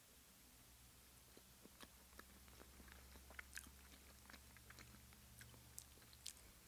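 Faint chewing of sushi: soft, irregular wet mouth clicks that start about a second and a half in, over a low steady hum.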